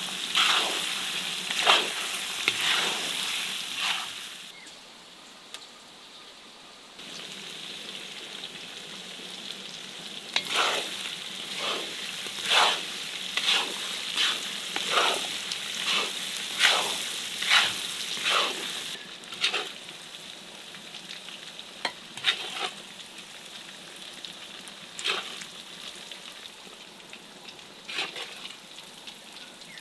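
Chunks of meat sizzling in hot oil in a deep cast-iron pot, with a wooden spatula scraping and stirring in sharp strokes. The sizzle drops a few seconds in, and the strokes come in quick runs in the middle and only now and then near the end.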